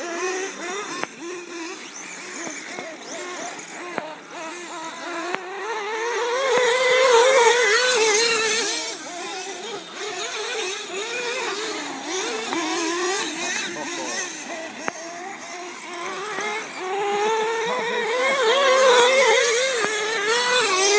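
BSD Racing Assault Flux radio-controlled car driving hard on dirt, its motor whine rising and falling with the throttle. Loudest about seven seconds in and again near the end.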